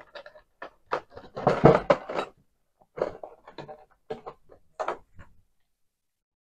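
Miniature figures and their packaging being handled and rummaged through: a run of short clicks, knocks and rattles, the busiest about a second and a half in, then the sound cuts off suddenly about five seconds in.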